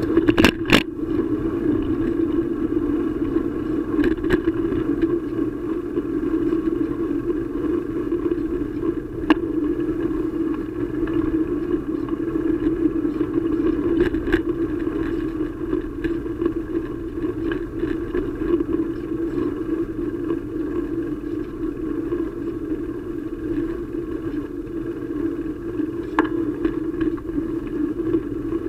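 Steady rushing of wind and rolling road noise picked up by a camera riding on a moving bicycle, with a few sharp clicks and rattles from bumps in the path.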